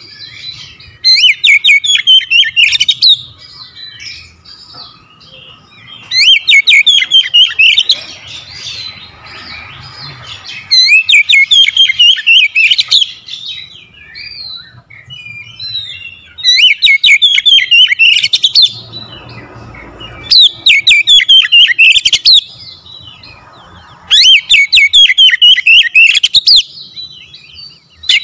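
Oriental magpie-robin singing: six loud phrases of rapid, trilling high notes, each about two seconds long and coming every four to five seconds, with quieter twittering in between.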